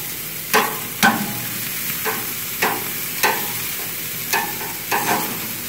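Shish kebabs sizzling steadily over hot charcoal, with about ten sharp clicks of metal tongs against the skewers and the grill grate as the kebabs are handled.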